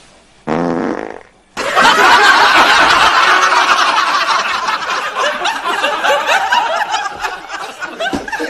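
A short fart, the 'corona cough' of the joke, followed a second later by long, loud laughter that slowly fades.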